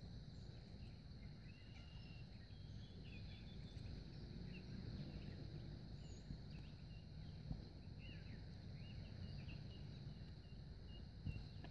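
Faint outdoor ambience: small birds chirping again and again and a steady high insect drone over a low rumble.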